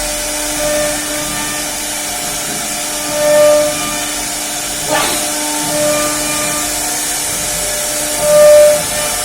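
CNC router running, a steady hiss with a whining tone, swelling louder twice as the cutter works.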